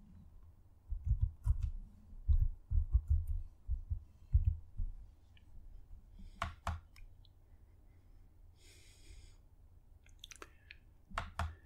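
Computer keyboard typed in a quick run of about a dozen soft keystrokes. Then mouse-button clicks follow: a pair about six and a half seconds in, and two more pairs near the end.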